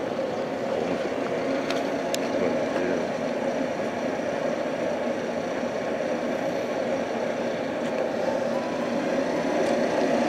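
Steady running noise of a red Meitetsu electric train standing at a station platform with its doors open, with a couple of faint clicks about two seconds in.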